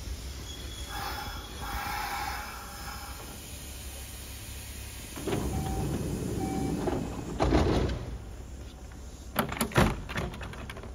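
Station platform sounds around a Kintetsu commuter train standing with its doors open for boarding: a low steady rumble, a tone-like sound about a second in, a rushing noise from about five seconds that peaks sharply near eight, and a few sharp knocks near the end.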